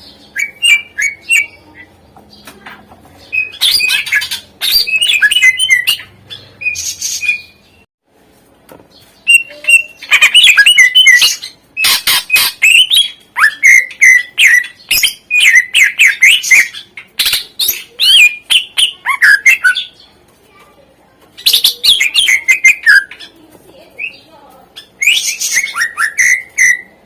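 Cucak ijo (green leafbird) singing in loud bursts of rapid chirps, trills and whistles, its song filled with imitations of other birds (isian), broken by short pauses between phrases.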